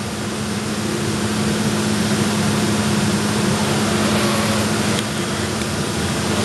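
HHO (oxyhydrogen) torch flame hissing steadily as it is played on granite, over a steady low hum. The hiss grows a little louder about a second in.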